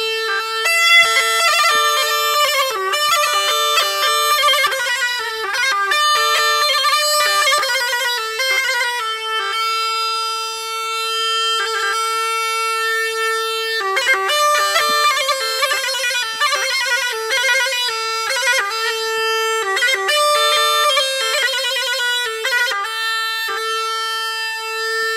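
Tulum, the Black Sea bagpipe, playing an instrumental passage: quick ornamented melodic runs over a steady held note. For a few seconds near the middle the runs stop and only sustained notes sound, then the runs resume.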